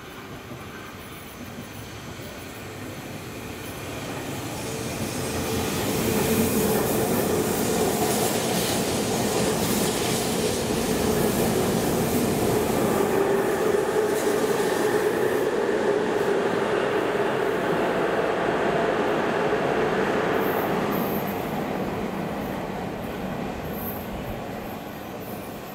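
Tobu 100 series Spacia electric express train passing through a station without stopping. It grows louder as it approaches, runs past close by for about fifteen seconds with a rushing rail noise and a steady tone underneath, then fades as it pulls away.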